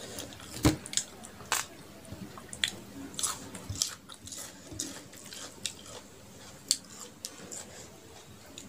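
Close-miked eating sounds: wet chewing and lip-smacking clicks while fingers squish and scoop curry-soaked rice on a metal plate. A single sharp thump about two-thirds of a second in is the loudest sound.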